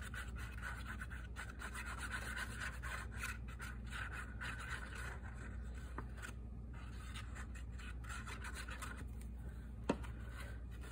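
Glue being spread along the back of a paper cover piece: the applicator scratches and rubs steadily across the paper, with one sharp click near the end.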